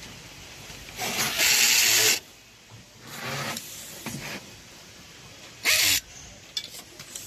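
Hose-fed automatic nylon cable tie gun fastening ties: a loud rushing burst lasting about a second, a few quieter mechanical bursts, then a second short loud rush near the end.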